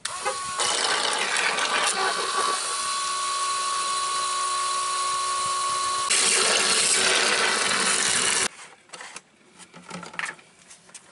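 A small 12-volt electric oil-change pump, run off a vehicle battery, drawing used engine oil out of a drain pan through a hose with a steady whine. About six seconds in its sound turns louder and rougher, and it cuts off suddenly about two seconds later.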